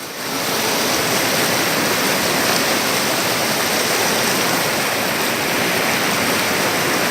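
Steady, even rush of flowing water, as from a stream or small waterfall.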